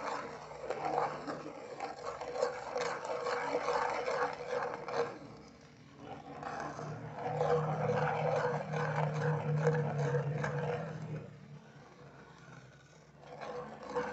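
Wooden spoon stirring and scraping around an aluminium pot of foamy soap mixture, in two spells with a short pause between, and a low hum under the second spell.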